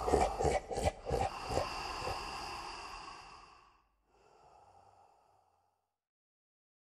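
Rapid, heavy breathing at about four breaths a second, fading out over the first four seconds. A faint short sound follows, then silence.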